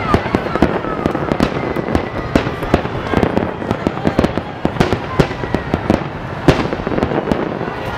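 Aerial fireworks display: a dense, irregular series of sharp bangs from shells bursting overhead, over continuous crackling, with a few faint whistles.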